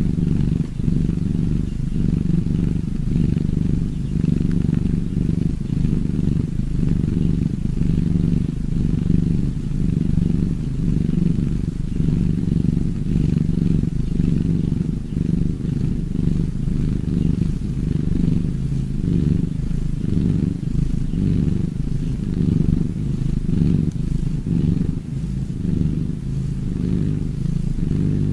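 Cat purring: a steady, deep, muffled rumble that rises and falls slightly with its breathing.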